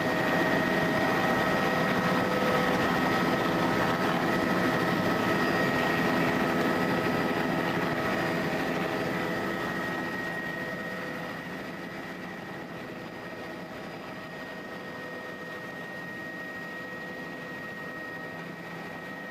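Tour helicopter's turbine engine and rotor running, a steady high whine over loud rushing noise. It eases down to a lower steady level about eleven seconds in.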